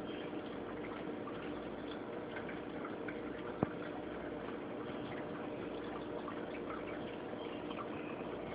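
Saltwater aquarium water circulating: steady trickling and dripping over a faint steady hum, with a single sharp click about three and a half seconds in.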